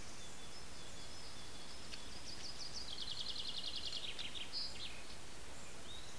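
Steady hiss with a songbird singing: scattered thin high notes, then a rapid trill of about ten notes a second, falling slightly in pitch, from about two to four seconds in, closed by a short higher note.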